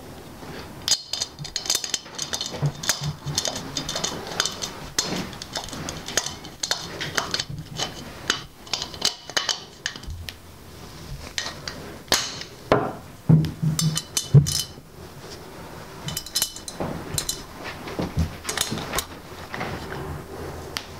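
Small metallic clicks, clinks and knocks, many short and irregular, as the screw-in weights and adjustable fittings of a TaylorMade R11S driver head are handled and worked on, with a low rustle of handling underneath.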